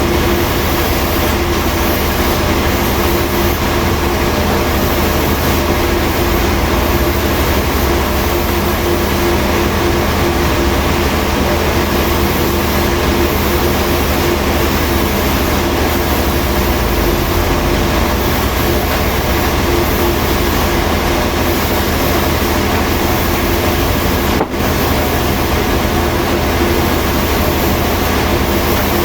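Heavy sawmill machinery running steadily and loudly, a dense whirring noise with a low hum and a steady tone, broken by a brief dip about 24 seconds in.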